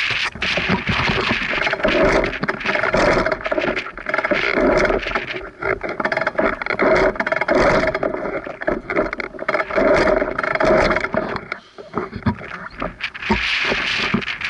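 Enduro dirt bike engine running, rising and falling in loudness every couple of seconds, with a brief drop about twelve seconds in.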